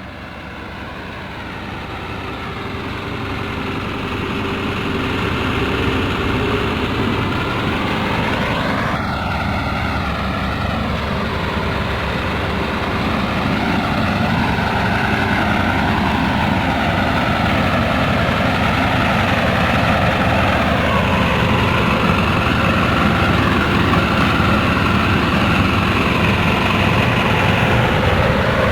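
Diesel engine of heavy construction machinery running continuously, fading in over the first few seconds; its pitch rises and falls several times as the machine works.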